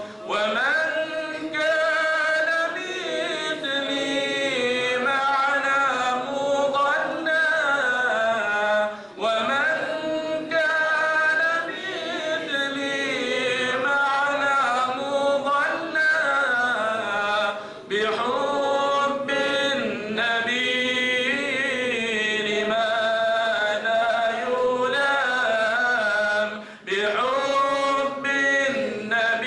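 A man's solo voice singing an Arabic devotional qasidah, unaccompanied, in long held and ornamented phrases. He breaks briefly for breath about every nine seconds.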